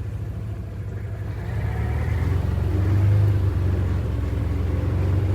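Vehicle engine running with a steady low drone, growing louder about halfway through.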